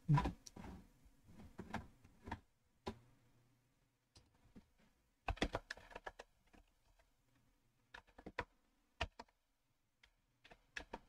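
Computer keyboard typing in short bursts of keystrokes, with pauses of a second or more between them. The busiest cluster comes about five seconds in.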